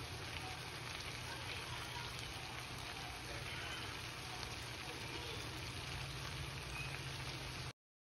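Corned beef with diced potatoes and onions sizzling and simmering in a nonstick frying pan: a steady, faintly crackling hiss that cuts off suddenly near the end.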